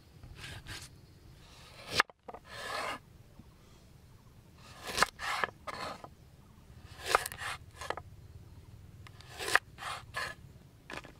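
Kitchen knife cutting on a wooden chopping board: first through raw chicken, then slicing a lime into rounds. Short rasping strokes of the blade through the peel and flesh come three times in the second half, each marked by a sharp tap of the knife on the board.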